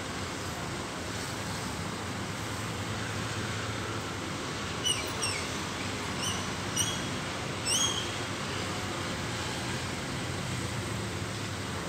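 Steady outdoor background hum, with four short, high chirps near the middle, each with a quick glide in pitch.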